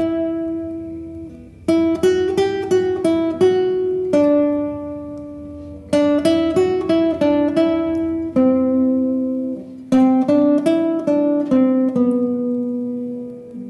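Solo classical guitar with nylon strings, played fingerstyle as a melodic piece. Quick runs of plucked notes come about two, six and ten seconds in, each followed by notes left ringing and fading away.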